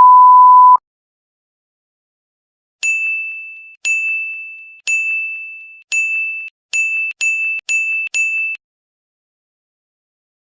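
A steady electronic beep for under a second, then silence, then a repeated electronic ding struck eight times with a sharp start and a quick fade. The dings come faster and get shorter toward the end.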